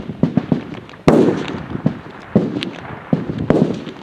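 Rifle shots from an F-Class firing line: several sharp reports at uneven intervals, the two loudest about a second in and about three and a half seconds in, each trailing off in an echo.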